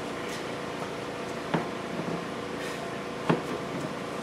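Two sharp clicks or knocks about two seconds apart, from hand tools working the plastic retainer clips and fasteners of a car's front wheel-well liner, over a steady background hum.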